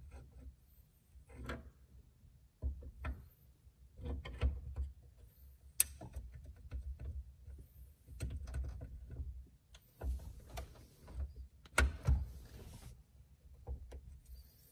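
Scattered light clicks, knocks and handling noise of hand work on a GMT400 steering column: the column-shift gear lever being pressed down over its return spring while its pivot pin is fed in. Two sharper metallic clicks stand out, about 6 and 12 seconds in.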